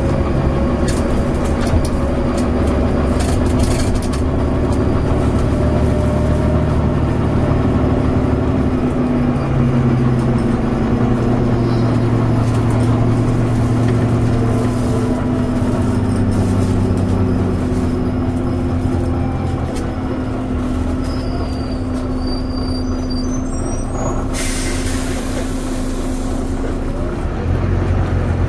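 Volvo B9TL double-decker bus's six-cylinder diesel engine running under way, heard on board, its note stepping up and down in pitch several times. About 24 seconds in, a burst of air hiss from the air brakes lasts a couple of seconds.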